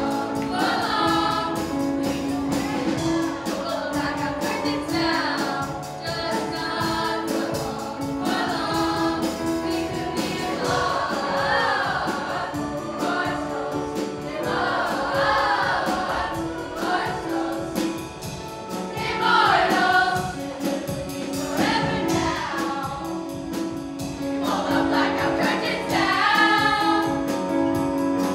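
Middle school choir singing a pop song with live band accompaniment of piano, electric guitar and drums.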